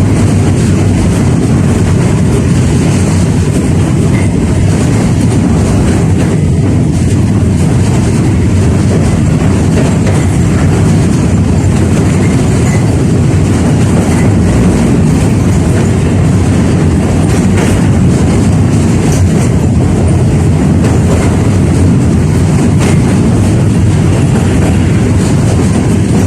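A 71-605A (KTM-5A) tram running along the track: a steady, loud rumble of wheels on rails, with faint clicks now and then.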